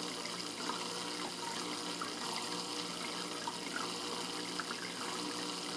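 Fish tank running: a steady trickle of moving water with a faint low hum under it.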